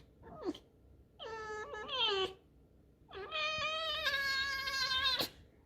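Pet fox giving two drawn-out whining squeaks, a shorter one about a second in and a longer one of about two seconds after a pause.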